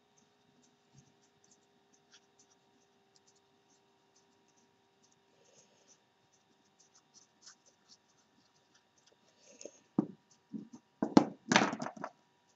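Hands handling paper and craft pieces on a wooden tabletop: faint scattered paper ticks and rustles, then about ten seconds in a short cluster of louder rustles and knocks as the pieces are pressed and set down.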